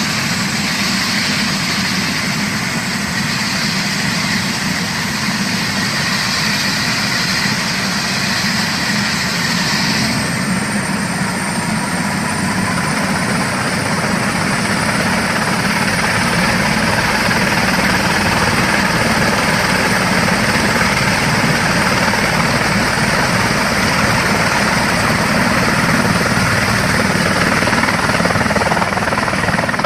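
Helicopter running up for takeoff: steady engine and rotor noise, with a high whine that starts about ten seconds in and rises slowly as the sound grows fuller and deeper.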